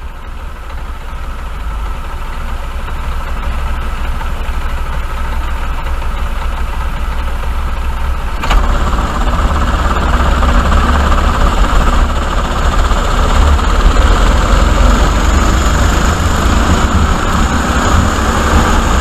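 Several Sodi RT8 rental karts' four-stroke engines running in a pack at low throttle, growing slowly louder, then opening up together to full throttle about eight and a half seconds in at the race start, staying loud and dense as the karts accelerate.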